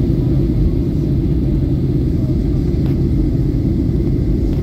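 Steady, loud low rumble of an airliner cabin in flight, engine and air noise without a break.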